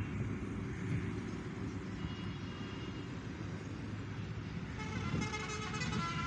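Steady low rumbling background noise, with music fading in about five seconds in.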